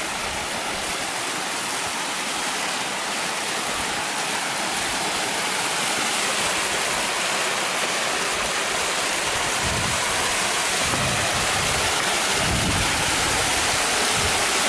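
Small mountain waterfall pouring over rock slabs: a steady rush of water that grows gradually louder.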